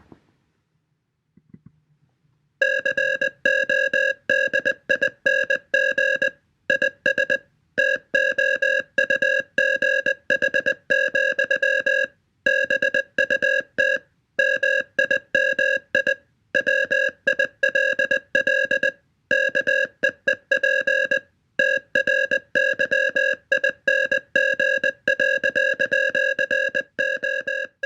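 Morse code sent as an electronic beep tone of one steady pitch, keyed on and off in short and long pulses with longer pauses between groups, starting about two and a half seconds in.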